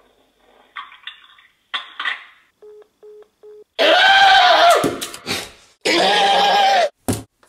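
A sweet potato being smashed against a kitchen countertop: sharp knocks a little after 5 s in and again near the end. Before them come three short identical beeps, then two loud, drawn-out pitched wails about a second long each.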